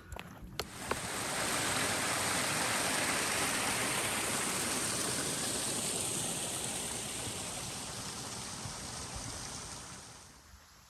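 Rushing creek water: a steady hiss that comes up about a second in and fades away near the end.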